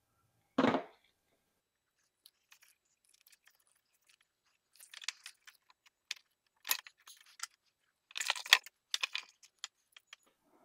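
Light metallic clinks and rustling from hands handling battery cable and small crimp-on wire terminals. The clinks come in scattered clusters, after a short louder burst just under a second in.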